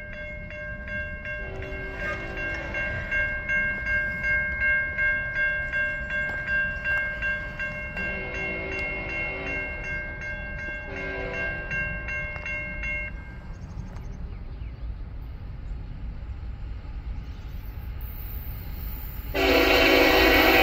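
Grade-crossing warning bells ring with rapid regular strikes as the gates lower, stopping about two-thirds of the way through. Under the bells, an approaching locomotive horn sounds faintly several times. Near the end the lead locomotive's horn blasts loudly and close.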